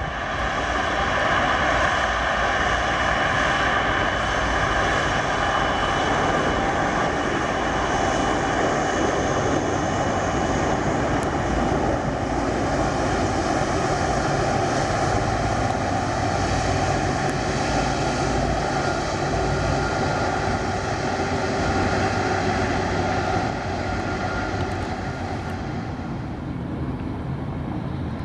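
Jet aircraft engines running steadily at low, taxiing power: a continuous roar with several high whining tones. It drops a little quieter about 23 seconds in.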